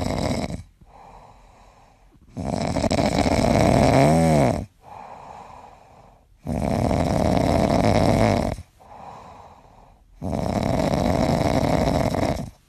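A sleeping grey cat snoring: a loud snore of about two seconds, then a quieter breath of about two seconds, repeating in a slow, even rhythm about every four seconds.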